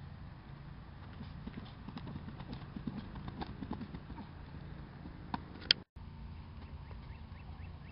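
Quick, rhythmic footfalls of shoes on grass as a player runs a footwork drill through a line of cones, over a steady low rumble. A single sharp click comes just before the sound cuts out briefly, about six seconds in.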